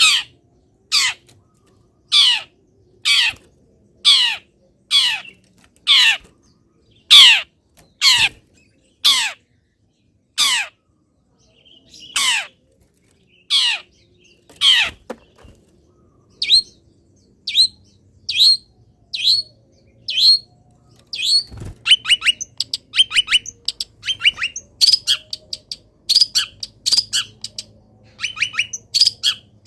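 Long-tailed shrike calling: a string of loud, harsh, downward-slurred calls about one a second, changing near the middle to shorter notes and then, about two-thirds through, to a rapid chattering song of varied notes.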